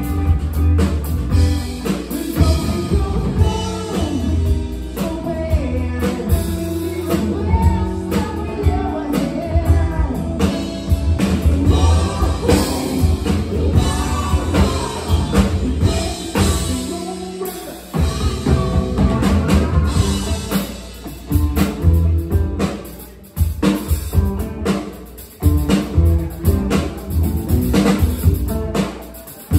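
Live rock band playing: electric guitar, electric bass and drum kit, with sung vocals. The band cuts out briefly a few times near the end.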